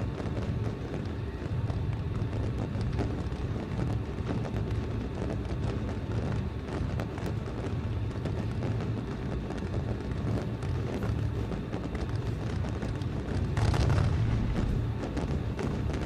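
Fireworks display: a continuous low rumble of booms with dense crackling, and a louder burst about three-quarters of the way through.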